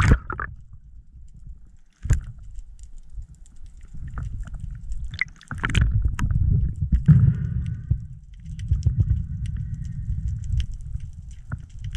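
Muffled underwater sound picked up by a camera in a waterproof housing: a low rumble of moving water with scattered clicks and crackles. A brief splashy burst opens it, and the sound cuts off and restarts abruptly twice.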